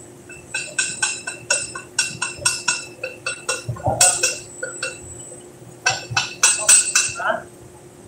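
Metal hand tool clinking and tapping against the steel of a steam boiler's manhole during a gasket change. The strikes come quickly in two runs with a short lull between, each one ringing briefly.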